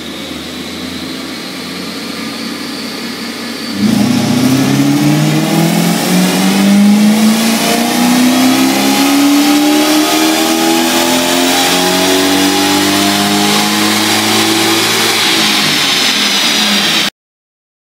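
4.0-litre V8 of a 1995 BMW E34 540i/6 on a chassis dyno, breathing through an exhaust with no catalysts or resonators, a 2.25-inch X-pipe and a Supersprint muffler. It runs steadily at light load, then about four seconds in it goes to full throttle and the revs climb steadily for about eleven seconds without a shift, with a thin whine rising above the exhaust note. The sound cuts off suddenly near the end.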